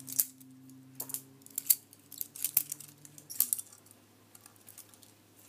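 A practice butterfly knife (balisong trainer) being flipped: its metal handles click and clack against each other in quick clusters, stopping after about three and a half seconds.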